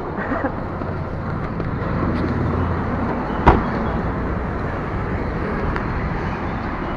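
Steady road traffic noise with a low rumble through the first three seconds, and one sharp click about three and a half seconds in.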